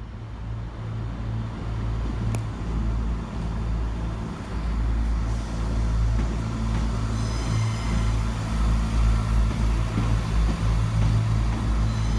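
ScotRail Class 170 Turbostar diesel multiple unit's underfloor diesel engines running with a deep hum that grows louder. A high whine joins about seven seconds in as the unit moves along the platform.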